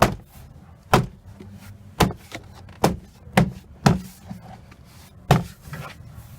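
Hand strikes on the interior door trim panel of a 2003 Mitsubishi Lancer, seven sharp knocks over about five seconds, snapping the panel's retaining clips back into the door.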